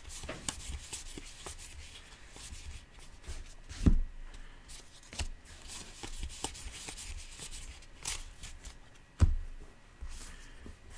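2019 Topps Allen and Ginter baseball cards being flipped through by hand, the cards sliding and clicking against one another. There are two louder knocks, about four seconds in and again about nine seconds in.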